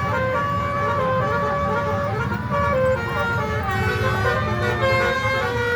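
Bus 'telolet' horn playing a melody: a run of held, stepped notes over the low rumble of the bus engine and passing traffic.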